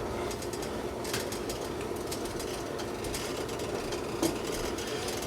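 Mushroom and onion gravy bubbling in a pan as it comes up to a light boil, with faint pops about once a second over a steady hum.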